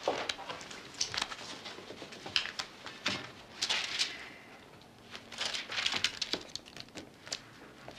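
A photo album being handled: set down on a table and opened, with scattered rustles and light knocks.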